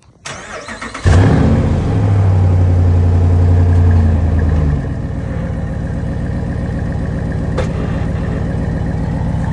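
Car engine running through a newly installed Flowmaster exhaust. About a second in it is revved up and held high for some four seconds, then drops back to a steady idle.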